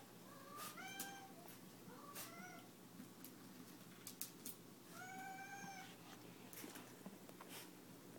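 Miniature Pinscher whining faintly in three high-pitched whines, the longest about five seconds in, with scattered light clicks between them.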